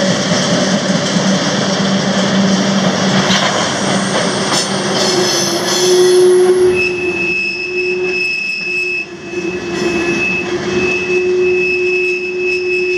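Freight train rolling on steel rails. About five seconds in, a sustained high-pitched wheel squeal sets in and holds, with brief breaks, to the end.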